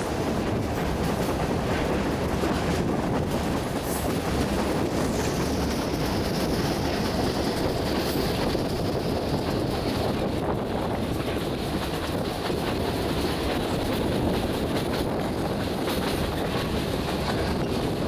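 Passenger train running along the track, a steady rumble of wheels on rail with a few clacks, heard from an open carriage window. A faint high whine slowly falls in pitch midway through.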